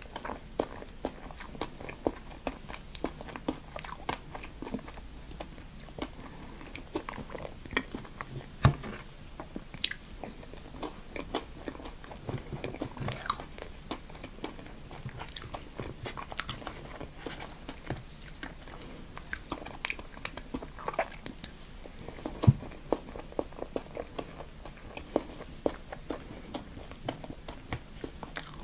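A person chewing and biting food close to the microphone, with frequent sharp crunches and moist mouth clicks; two bites, about nine seconds in and about twenty-two seconds in, stand out as the loudest.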